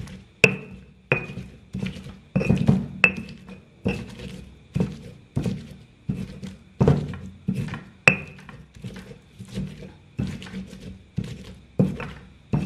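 Stone pestle pounding chilies and oil into sambal in a stone mortar (cobek and ulekan): a steady run of dull knocks, about one and a half a second, some with a short ringing click of stone on stone.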